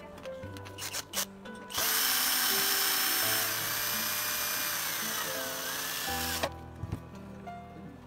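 12 V cordless drill driving a screw into a metal lock mounting plate, running steadily for about five seconds, its pitch dropping slightly near the end before it stops.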